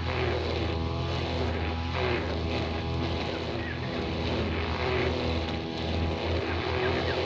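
Brushcutter engine running steadily at work, its pitch wavering slightly up and down as the load changes.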